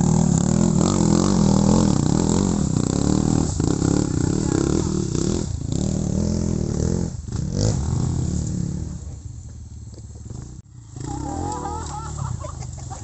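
Trail motorcycle engine running at low, steady revs, then dropping away about eight to nine seconds in.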